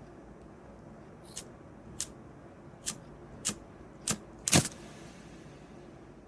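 Six sharp clicks or taps about half a second apart, getting louder each time, the last one the loudest, over a faint steady background.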